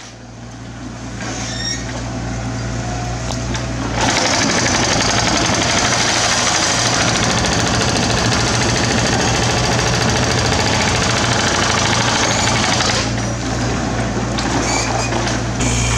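Mini excavator's diesel engine running steadily. From about four seconds in to near the end, a loud, rapid, continuous rattling of machine work on the rock debris is heard over it.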